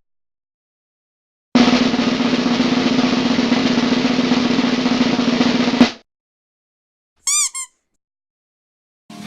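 Snare drum roll, a fast even rattle lasting about four seconds and ending on a sharp hit. A second or so later comes a short pitched chirp, followed by a second, briefer one.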